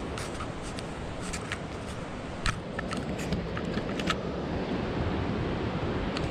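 Steady rush of river water, with a scatter of light clicks and rattles during the first four seconds, the sharpest about two and a half seconds in.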